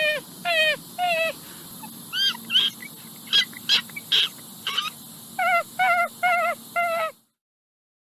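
Raccoon calling: a series of short cries that fall in pitch, about two a second, with a run of higher, thinner squeaks in the middle. The calls stop abruptly about seven seconds in.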